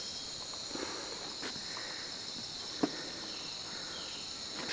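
Steady, high-pitched chorus of rainforest insects, several shrill tones held together, with a few faint clicks and one sharper click a little past the middle.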